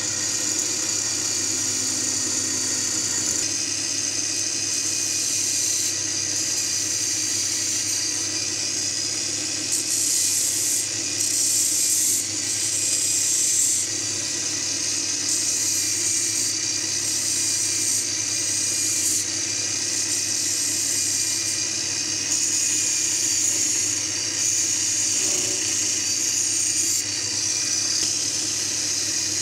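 Homemade wood lathe driven by an angle grinder, its motor running with a steady high whine through the belt drive. A hand-held turning chisel cuts the spinning wooden blank, adding bursts of scraping hiss from about ten seconds in.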